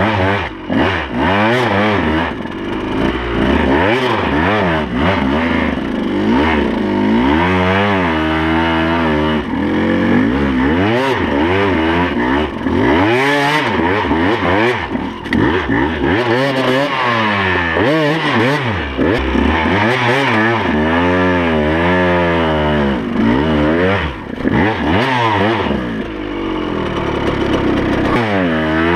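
KTM 200 XC-W's single-cylinder two-stroke engine revving up and down again and again through low-speed trail riding, with clattering and scraping as brush and branches strike the bike.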